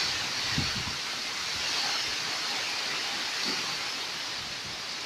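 Heavy rain pouring down steadily in a rainstorm.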